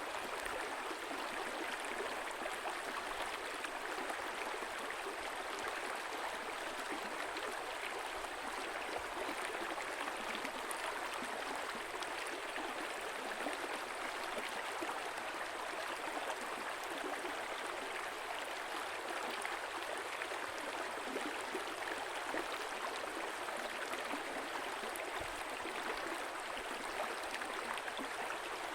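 A small stream flowing steadily, its water babbling and gurgling with no breaks.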